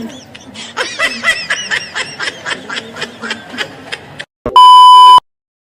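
Rapid, high-pitched laughter in quick repeated bursts, then a loud steady beep tone lasting about half a second that cuts off into silence.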